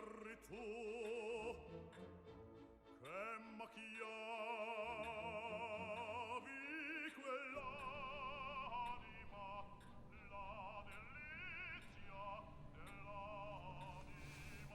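Operatic singing with a strong vibrato over background music. The voice slides up into long held notes, then moves through shorter notes in the second half.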